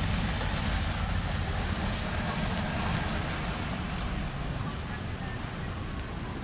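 Steady low outdoor rumble with a few faint, high ticks scattered through it.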